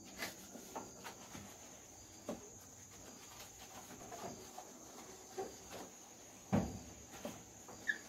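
Faint scattered rubs and light knocks of a sponge scrubbing the plastic lid and control panel of a top-load washing machine, with one louder knock about two-thirds of the way through. A steady high-pitched tone runs underneath.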